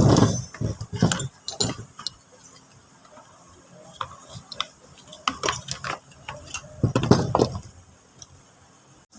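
Irregular metallic clicks, taps and knocks of hand work on a small two-stroke brush-cutter engine, such as fitting its throttle cable, with heavier clunks at the start and about seven seconds in; the engine is not running.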